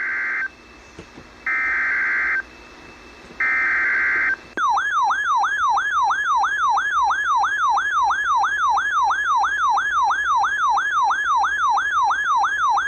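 Emergency Alert System broadcast opening: three bursts of SAME header data tones, each a harsh digital screech about a second long, with short gaps between. About four and a half seconds in, a loud attention tone takes over. It warbles, sweeping down and up about two and a half times a second.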